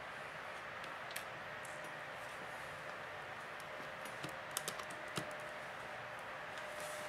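Light clicks and taps of a small precision screwdriver and fingers on the opened Samsung Galaxy Tab 3's frame and screws: a single click about a second in, then a quick cluster of clicks about four to five seconds in. A steady faint hum runs underneath.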